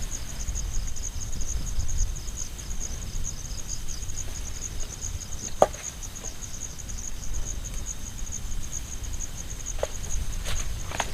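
An insect trilling steadily, a fast, high-pitched pulsing trill that does not let up. One sharp knock about halfway through, and a few softer knocks near the end.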